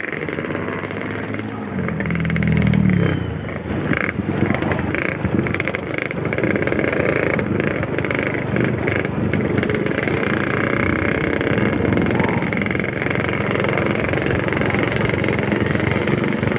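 Honda Supra motorcycle's engine running at riding speed, heard from the saddle, along with the noise of riding and the engines of the group of motorcycles ahead. The engine swells louder about two to three seconds in, and there are scattered short knocks over the next few seconds.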